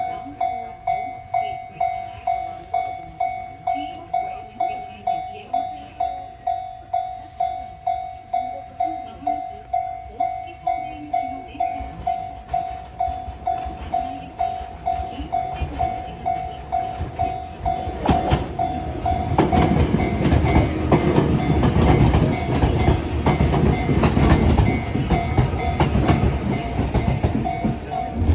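Japanese level-crossing warning bell ringing steadily at about two strokes a second. About eighteen seconds in, an arriving Fujikyu Railway train's rumble and wheel noise build up and grow loud under the bell.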